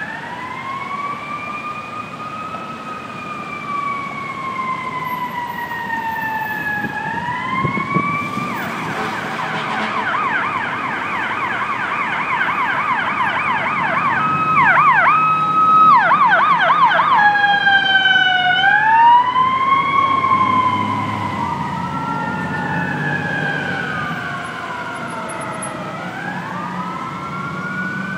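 FDNY emergency vehicle sirens wailing in slow rising and falling sweeps, switching to a fast yelp for several seconds in the middle, then back to a wail. Near the end a second siren's wail overlaps the first, over city traffic.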